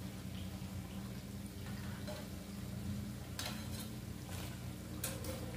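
Hot oil bubbling gently in a steel kadhai as batter-fried baby corn pieces are lifted out with a metal slotted spoon, over a steady low hum. A few light clicks of the spoon come from about three and a half seconds in.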